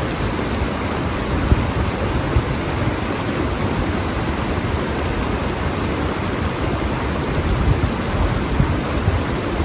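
Mountain stream rushing over rocks and a fallen log, a steady, even rush of water.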